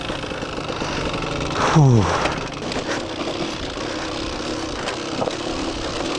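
Enduro motorcycle engine running steadily. About two seconds in, a man breathes out a falling 'phew'.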